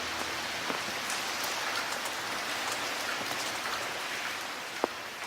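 Steady rain falling: an even hiss dotted with the ticks of single drops, with one sharper drop near the end as it begins to ease off.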